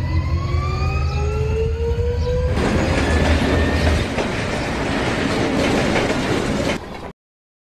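Train sound effect: a rising whine over a low rumble as the train gets going, then a loud rushing clatter of rail cars passing, which fades and cuts off to silence near the end.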